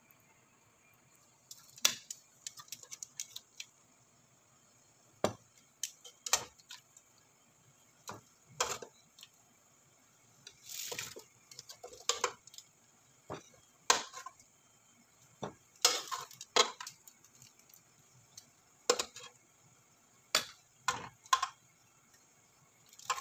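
Metal tongs clinking and scraping against an aluminium stockpot as boiled lamb pieces are lifted out of the broth: irregular sharp clinks, with a longer scrape about eleven seconds in.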